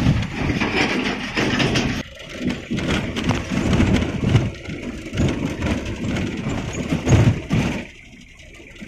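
A car jolting over a broken, potholed road, heard inside the car: irregular knocks and rattles from the body and suspension over a rumble of tyre noise, easing off near the end.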